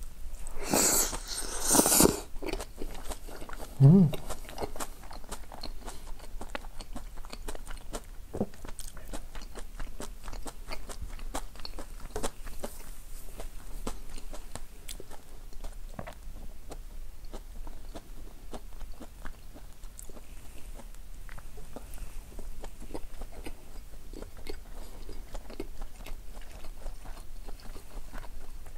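A person eating okonomiyaki close to a clip-on microphone: a loud, noisy slurping bite about a second in, then steady wet chewing with many small irregular clicks.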